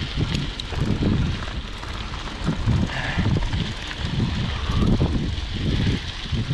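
Wind buffeting the microphone of a bicycle rider on the move, an irregular low rumble.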